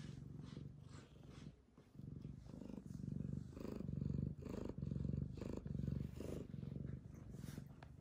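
Domestic cat purring steadily, the low rumble swelling and easing with each breath in and out.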